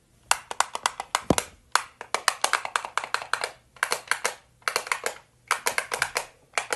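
Rapid, sharp clicking in about eight short bursts, each roughly half a second long and coming at a steady pace, with one dull low thump about a second in.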